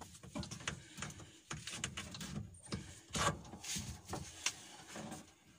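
Rubber air-cleaner hose being pushed and twisted by hand onto the carburetor of a Bajaj four-stroke petrol three-wheeler: irregular rubbing and small clicks of rubber on metal.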